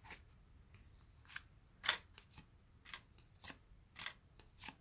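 2022 Topps Series One baseball cards being flipped through by hand, each card slid off the front of the stack and tucked to the back with a short, dry paper rasp. About eight faint strokes, roughly one every half second, the loudest about two seconds in.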